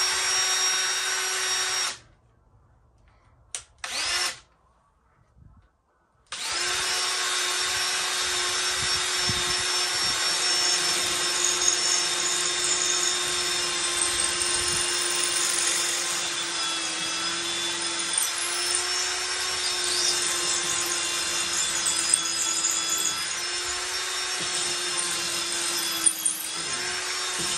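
Cordless drill boring a pilot hole overhead into a concrete block wall for a Tapcon concrete screw. It runs briefly, blips once, then runs steadily for about twenty seconds, its pitch dipping slightly now and then under load.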